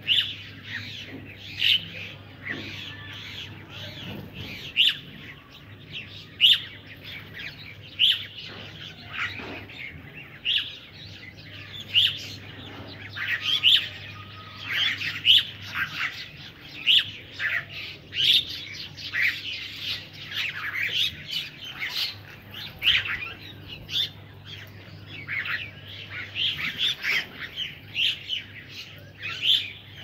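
A mixed flock of feeding crows, mynas and pigeons calling: a busy run of short, sharp chirps and calls, one or two a second and thickest about halfway through, over a low steady hum.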